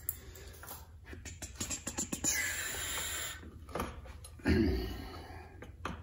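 A wristwatch being taken off: a few light clicks of the clasp and strap and a short rustle. About four and a half seconds in comes a dull thump from handling.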